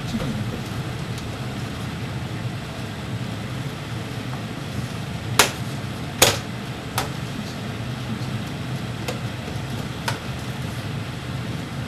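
Steady low hum of room noise with a handful of sharp clicks and taps, the loudest two about a second apart in the middle, from hard parts being handled during the teardown of a PlayStation 3.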